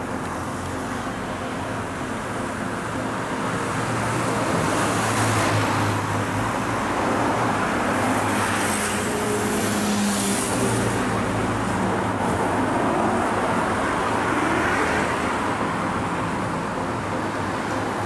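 Road traffic on a busy street: a steady rush of cars and motorbikes, swelling as vehicles pass close by several times in the middle.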